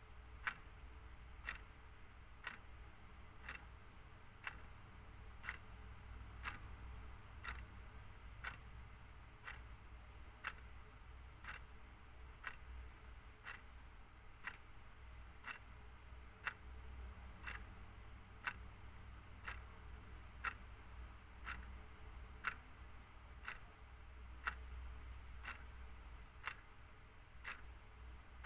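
Clock ticking steadily, about once a second, over a faint low hum.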